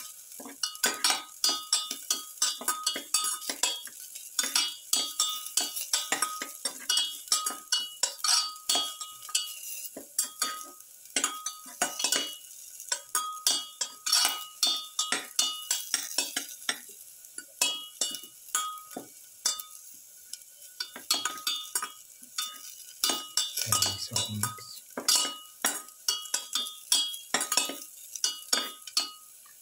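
Metal utensil stirring garlic and onion pieces in a stainless-steel pan: quick, irregular scrapes and clinks, about two or three a second, each leaving a short metallic ring, over a faint sizzle of frying oil. A brief low hum sounds once, a little past the middle.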